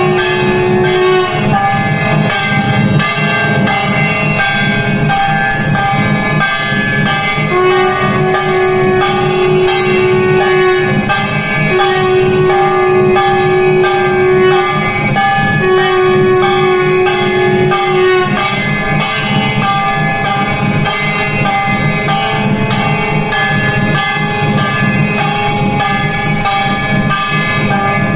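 Temple bells ringing continuously during an aarti, with a long held note sounding in spells of a few seconds at a time.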